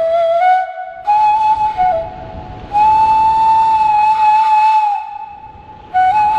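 Background music: a solo flute playing a slow, breathy melody, with a long held note in the middle.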